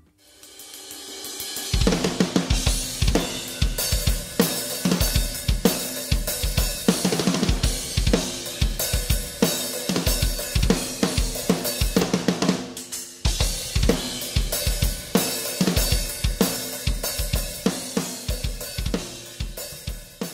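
Drum kit playing a fast groove: a cymbal wash swells up over the first two seconds, then bass drum, snare, hi-hat and cymbals come in with rapid, often doubled kick strokes.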